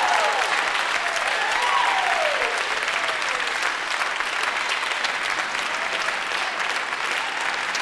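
Audience applauding at the close of a choral performance, with a few voices cheering over the clapping in the first few seconds.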